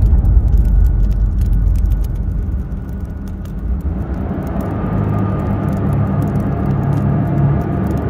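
Fire in a fireplace crackling, many short sharp crackles scattered over a deep steady rumble.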